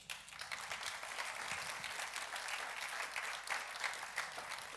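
Audience applauding: many hands clapping, starting all at once and holding steady.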